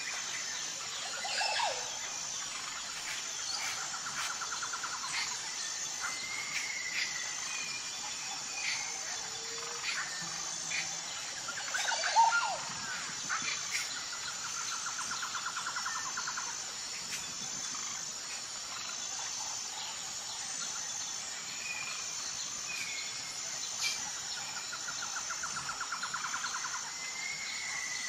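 Tropical jungle birds calling and chirping over a steady, high, pulsing buzz. A rattling trill comes three times, and a sharp call about twelve seconds in is the loudest sound.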